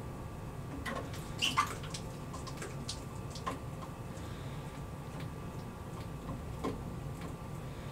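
Small plastic stirrer swishing and dripping in the water of a small plastic sea-monkey tank, with scattered light clicks and splashes, the loudest about a second and a half in.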